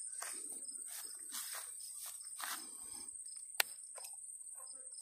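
Insects trilling in the grass: a steady, high-pitched drone with an even pulsing chirp beneath it. Over it are short rustling handling noises, and one sharp click about three and a half seconds in.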